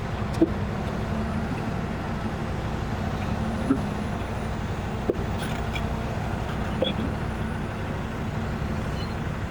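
Heavy diesel equipment running steadily with a low drone, with a few short knocks spread through it.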